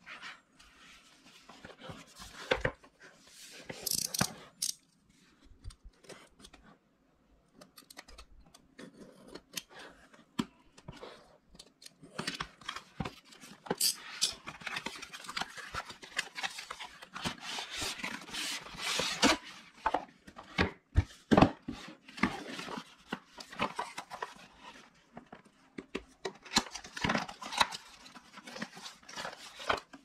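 Product packaging being opened and handled by hand: irregular rustling, scraping and tearing with sharp clicks, sparse at first and busier in the second half.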